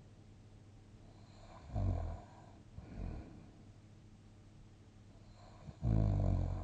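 A sleeping person snoring: a loud snore about two seconds in, a softer one a second later, then a longer, loud snore near the end, with quiet sleep breathing in between.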